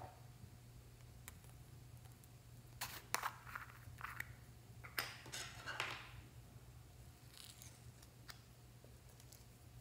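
A small strawberry-shaped plastic container being opened by hand: a short run of plastic clicks and scrapes from about three to six seconds in, over a faint steady low hum.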